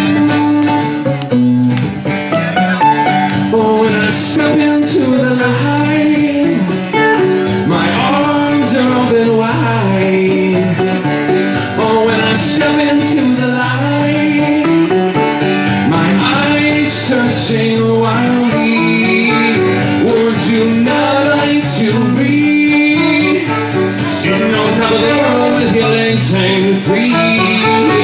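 A live band playing a rock song, with acoustic guitar over a full band backing.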